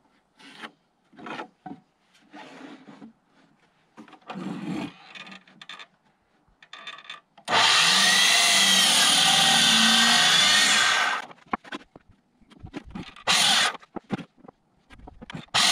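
Ridgid sliding miter saw cutting through a brown pressure-treated 2x6, running for about three and a half seconds from midway through and stopping suddenly. Shorter knocks and scrapes come before and after the cut.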